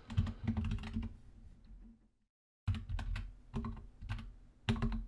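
Typing on a computer keyboard: runs of quick keystrokes, with a brief dead silence a little past two seconds in.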